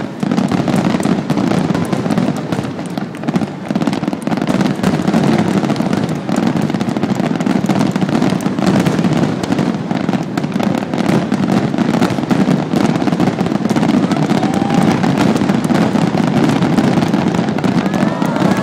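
Fireworks display going off in a dense, continuous barrage of bangs and crackles, with no pause.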